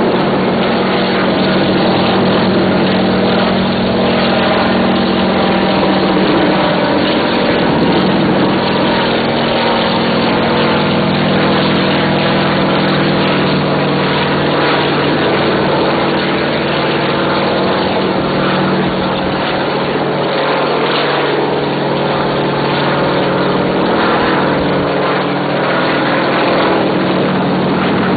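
Helicopter running steadily during a condenser lift, its engine and rotors a constant loud drone.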